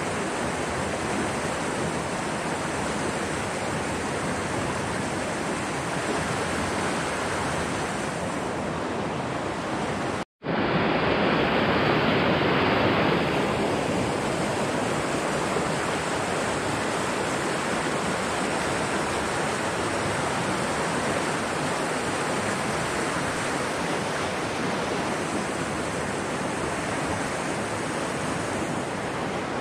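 Steady rushing of a mountain stream's water over rocks, an even hiss. It cuts out for an instant about a third of the way in and comes back a little louder for a few seconds.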